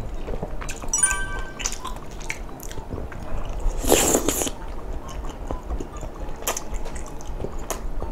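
Close-miked wet chewing of soft, sauce-coated tteokbokki rice cakes, with small mouth clicks and smacks. There is one loud slurp about four seconds in.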